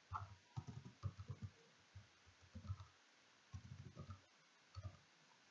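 Faint computer keyboard typing: quiet keystroke clicks in short clusters with pauses between them.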